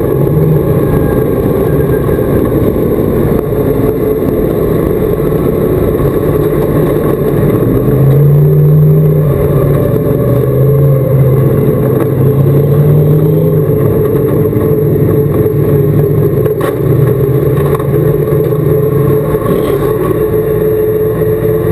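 Dirt-track crate modified's V8 engine heard from inside the cockpit, running loud, its pitch rising and falling as the throttle is worked, with louder surges about eight and twelve seconds in.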